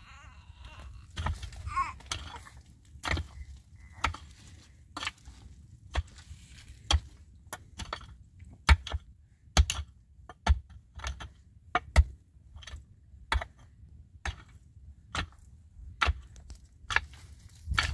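Wood being chopped: a long run of sharp strikes, roughly one a second and unevenly spaced, a few of them much louder than the rest.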